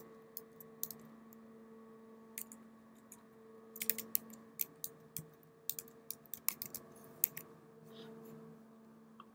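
Computer keyboard keys being typed: irregular key clicks, bunched into quick runs in the middle, over a faint steady hum.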